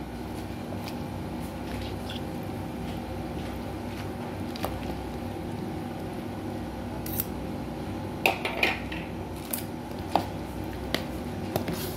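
A metal spoon stirring creamy macaroni salad in a plastic tub: wet squishing with scattered clicks and scrapes of the spoon against the container, more frequent in the second half, over a steady low hum.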